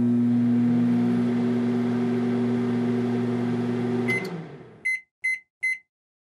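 A steady electric hum with a low buzz that fades out about four seconds in, followed by four short electronic beeps.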